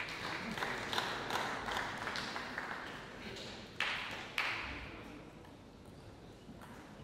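Scattered audience applause that dies away after about three seconds, followed by two louder sharp noises about four seconds in.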